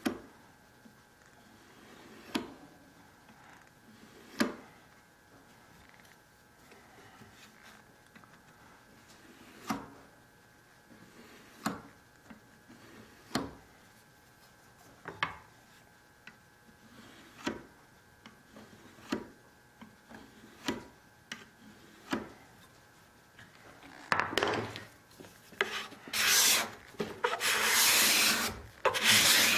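Steel cabinet scraper drawn across wood, its freshly burnished burr biting and taking off very fine shavings. Short, separate strokes every second or two, then a run of much louder, closely spaced scraping strokes about five seconds before the end.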